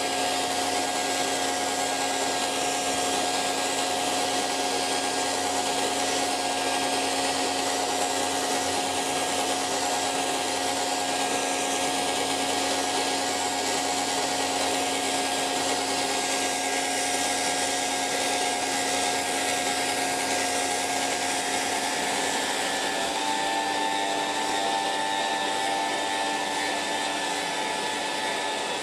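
Hair dryer running steadily: an even blowing hiss with a steady motor hum. About 23 seconds in, the hum shifts slightly higher.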